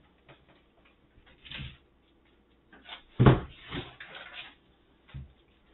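Handling noises as objects are moved: a few light knocks, a louder thump about three seconds in, then a short stretch of rustling.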